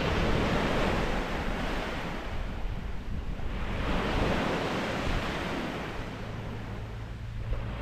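Sea waves breaking and washing up the shore, swelling and fading every few seconds, with wind rumbling on the microphone.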